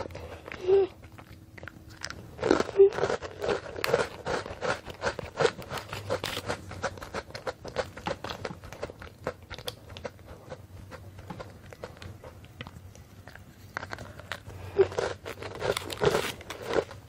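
An Oreo chocolate sandwich cookie being bitten and chewed close to a clip-on microphone, a quick run of crunching that thins out as the chewing goes on. Near the end comes a louder cluster of crinkling as a foil cookie wrapper is torn open.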